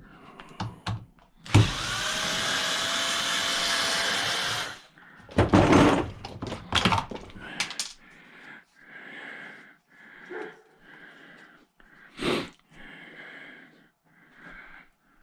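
A power tool runs steadily for about three seconds, then parts clatter and knock as they are handled, followed by quieter scraping and rustling.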